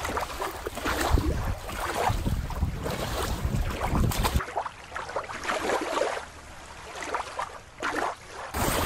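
Wind buffeting the microphone over shallow water lapping and splashing, as a toy is dipped and moved through it. About four seconds in, the sound cuts abruptly to a quieter, thinner water-like hiss.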